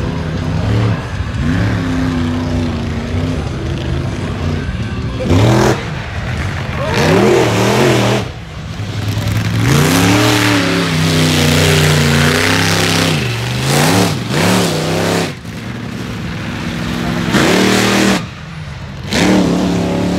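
Monster truck engine revving hard over and over, its pitch climbing and dropping several times, with a handful of short, louder surges as it throws up dirt.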